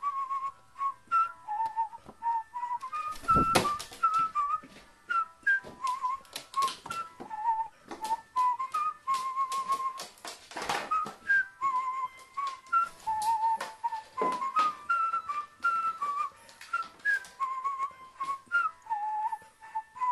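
Background music carried by a whistled melody, a bright tune hopping between notes several times a second. Scattered clicks and knocks sound over it, the loudest about three and a half seconds in.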